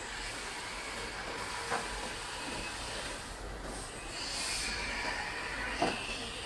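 Steady running noise of an automatic mask-making production line, mostly an even hiss, with a brief higher hiss about four and a half seconds in and a couple of light knocks.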